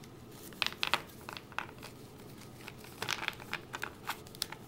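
Crinkling and rustling of a Pokémon card booster pack's wrapper and cards being handled, in two short crackly spells: about half a second in and about three seconds in.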